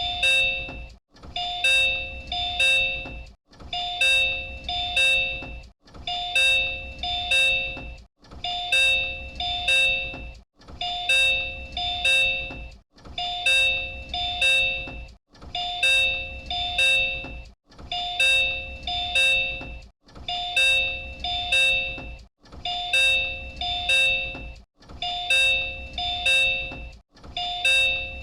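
Door chime of a Disney Resort Line Type 10 monorail train, the same chime used on JR Central trains. A two-note ding-dong sounds twice in quick succession, then a short pause, repeating evenly about every two and a quarter seconds.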